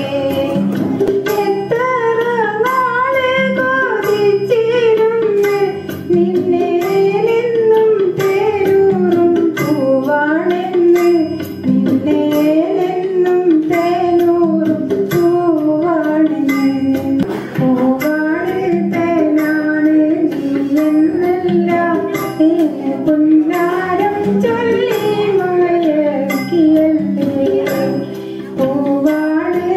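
A woman singing a melody into a microphone, accompanied by a steady held drone and a light, regular percussive beat.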